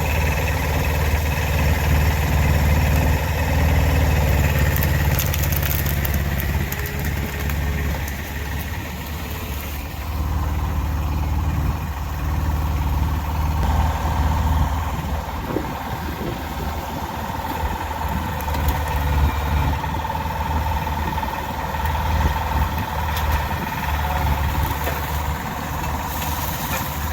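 Kubota BX1500 compact tractor's small three-cylinder diesel engine running steadily, its loudness rising and falling as the load changes.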